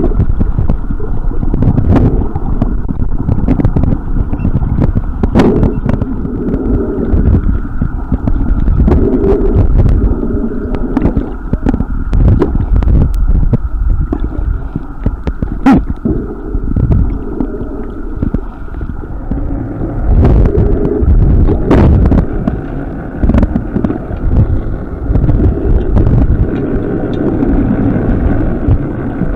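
Muffled underwater noise heard through a submerged camera: a low, uneven rumble of moving water, with scattered sharp clicks.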